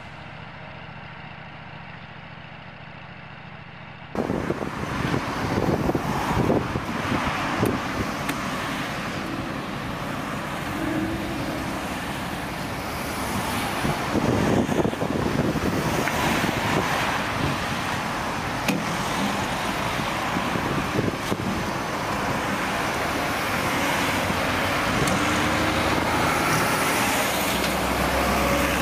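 Heavy road-construction machinery running, a steady engine hum at first. About four seconds in it switches abruptly to a louder, rougher clatter of engines with repeated knocks and rattles.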